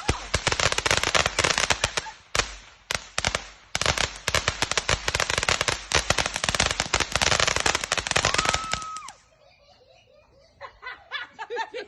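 Fireworks going off in a rapid crackle of dozens of sharp pops, thinning out briefly about two seconds in, then picking up again and stopping suddenly at about nine seconds. Voices follow near the end.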